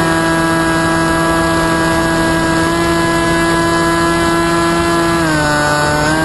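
FPV flying wing's motor and propeller droning steadily, heard from the onboard camera. The pitch drops about five seconds in as the throttle eases, then climbs back near the end.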